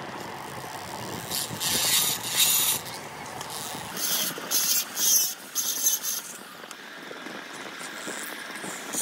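Flexible-shaft rotary grinder porting a Yamaha RX135 two-stroke cylinder: the tool runs steadily, and its bit grinds metal inside the port in several loud bursts of a second or two each, the first about a second in and another near the end.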